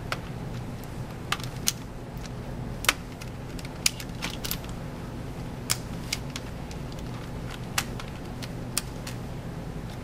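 Small sharp plastic clicks, about ten at irregular intervals, as fingers unclip fragile cable connectors and handle parts on a laptop motherboard, over a steady low hum.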